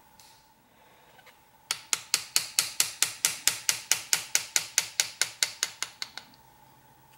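Small engraving hammer tapping a hand graver as it cuts a scroll into a metal plate (hammer-and-chisel engraving): an even run of sharp taps, about five a second, starting about a second and a half in and stopping near the end.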